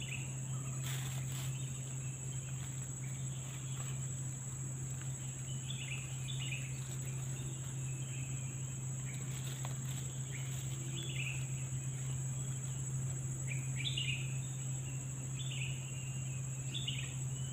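Steady high-pitched drone of insects, with scattered short bird chirps and a steady low hum underneath.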